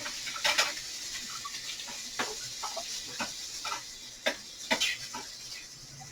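Kitchen tap running in a steady stream while a hand is rinsed of sauce under it, with irregular splashes and small knocks; the water cuts off suddenly at the end.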